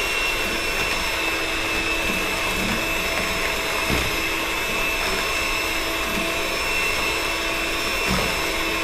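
Electric hand mixer running at a steady speed, its beaters mixing sugar cookie dough in a bowl, with a constant motor whine.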